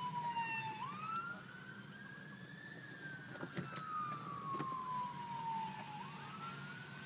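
Emergency vehicle siren on a slow wail: the pitch climbs over about two seconds, falls away over about three, and starts climbing again near the end.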